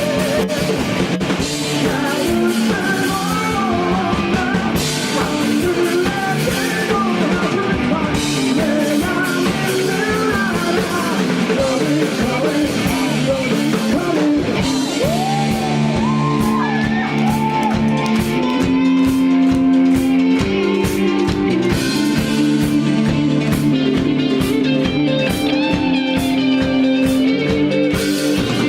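Rock band playing live at a steady loud level: distorted electric guitars and a drum kit, with singing over them.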